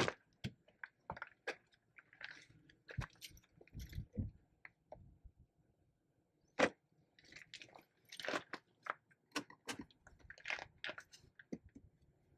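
Irregular clicks, knocks and rustling from things being handled inside a pickup truck's cabin, with one sharper knock about halfway through.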